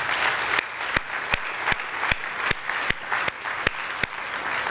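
A congregation applauding, with one nearby person's claps standing out sharply at a steady pace of about two and a half a second.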